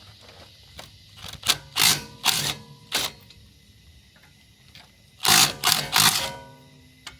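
Impact wrench undoing a car's wheel nuts in short rattling spurts, a group of four about a second in and a group of three about five seconds in.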